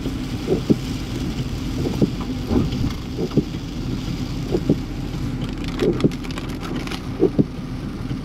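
Inside a car's cabin while driving on a wet road in heavy rain: a steady low rumble of engine and tyres, with irregular dull knocks about once a second and a short crackly rattle around six seconds in.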